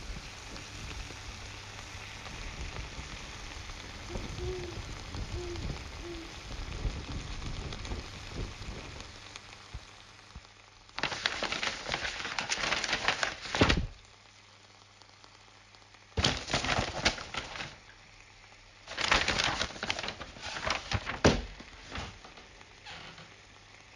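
Home-made foley effects made with household items: a steady rushing noise for about ten seconds, then several separate bursts of crackling, rustling noise, each lasting one to three seconds.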